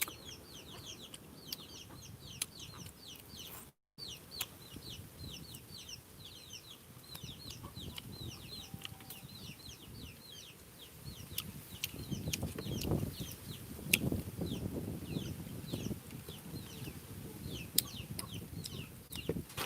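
Chicks peeping nonstop, a rapid run of short falling chirps. From about the middle on, muffled low handling or chewing noises sit beneath them.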